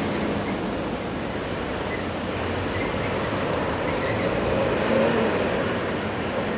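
Freight train on the move, a steady rumbling noise with no break.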